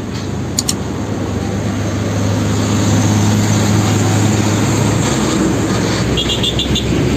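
A vehicle engine running, a steady low hum under a rushing noise that grows louder over the first few seconds, with a quick run of light ticks near the end; it is likely a sound effect for the toy tanker truck.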